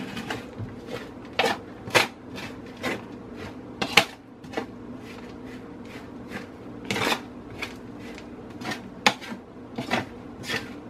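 Metal spoon scraping and clinking against an aluminium sheet pan while stirring a dry, crumbly mix of oven-dried chopped herbs and vegetables. The strokes are irregular, roughly one or two a second, with a longer scrape about seven seconds in.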